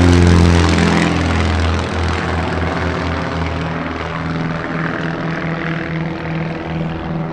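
Two single-engine propeller planes flying a formation pass overhead: loud engine and propeller drone that drops in pitch as they go by, then a lower, somewhat quieter drone as they fly away from about two seconds in.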